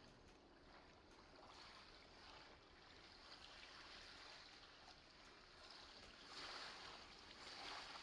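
Faint field recording of sea waves washing on a shore, a soft even wash with two louder surges of surf near the end.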